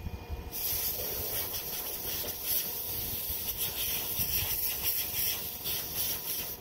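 Steady hiss of escaping air from a fitting on the tractor engine. It starts suddenly about half a second in and cuts off suddenly at the end.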